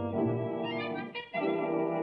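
Orchestral title music from a 1930s cartoon: held chords, breaking off briefly about a second in before the next chord begins.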